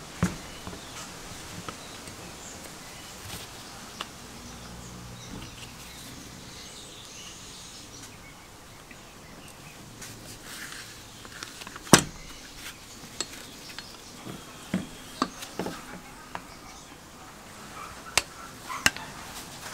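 Scattered clicks and knocks of a restored foot tyre pump's painted frame, cylinder and parts being handled and fitted together, the loudest knock about twelve seconds in.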